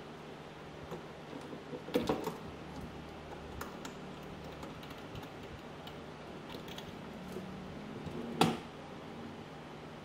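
Handling noise from a steering wheel with metal spokes being moved about at its desk mount: scattered light clicks, a short cluster of knocks about two seconds in, and one sharp, louder knock near the end, over a faint steady hum.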